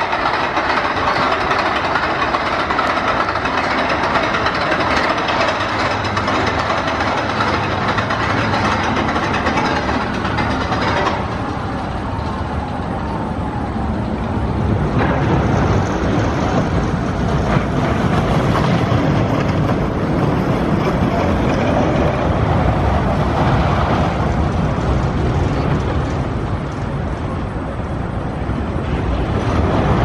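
Zamperla Windstorm steel roller coaster train running along its track: a steady rumble of wheels on steel rail. It rises and falls as the train moves through the layout, easing off twice.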